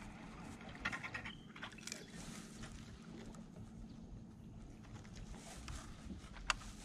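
Faint clicks and knocks from handling a fishing rod and reel in a small boat, with one sharp click near the end, over a steady low hum.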